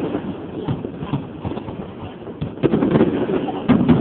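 Fireworks going off: a run of bangs and crackles that grows busier about two and a half seconds in.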